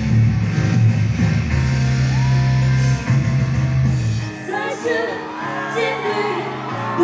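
Loud live pop music over the stage sound system, with a heavy bass-driven beat. About four seconds in the bass drops out, leaving a woman singing into a microphone over lighter accompaniment.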